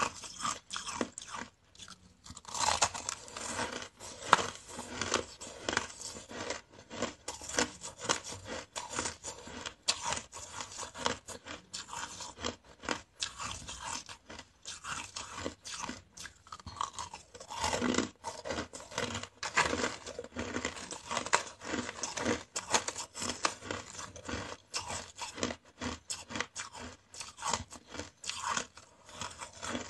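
Purple flavoured ice being bitten and chewed, a dense run of irregular crisp crunches.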